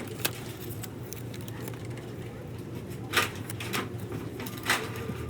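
Steady low hum with three sharp taps: one at the start, the loudest about three seconds in, and another near the end.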